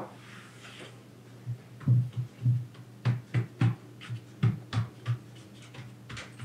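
Hands patting and pressing a thin sheet of baklava dough down onto the layers in the tray: soft low thumps, about three a second, that stop near the end. The pressing pushes out the air between the dough layers.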